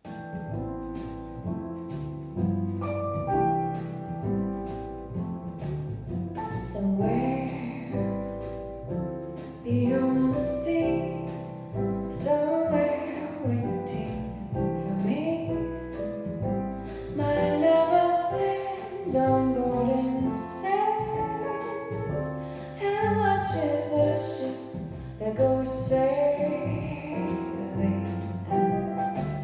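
A song with a woman singing over piano and band, played back through Harbeth P3ESR speakers. The music starts abruptly right at the beginning.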